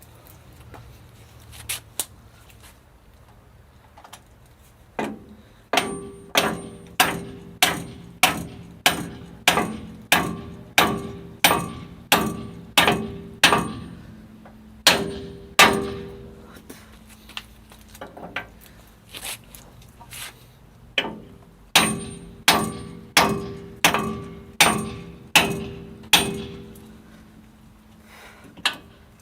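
Hammer blows on ringing steel, about one and a half a second in runs with short pauses, each blow leaving a metallic ring: driving the brake expander-cam (S-cam) shaft bushings on a KAMAZ truck.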